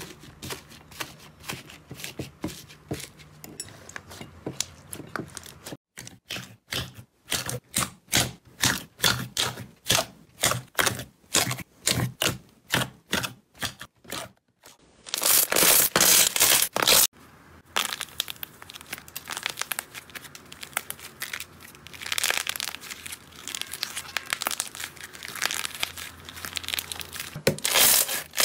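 Hands poking, tearing and squishing slime: rapid crackling and tearing pops of fluffy cloud slime, then sticky crackles and squelches of glossy slime being kneaded and pressed, with louder dense bursts of crackle midway and near the end.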